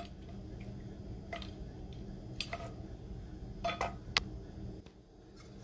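A utensil clicking and scraping against a metal bowl as chunks of goat meat in palm-oil sauce are stirred: a handful of short sharp clicks spread through the middle seconds, over a steady low hum.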